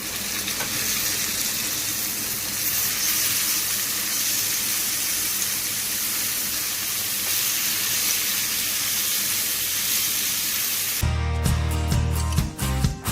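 Steady sizzling hiss of chicken frying in a pan. About eleven seconds in, acoustic guitar music starts.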